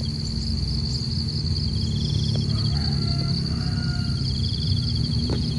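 Insects singing in a steady high drone, with a pulsing trill that comes and goes twice, over a continuous low rumble. A few faint bird whistles sound in the middle.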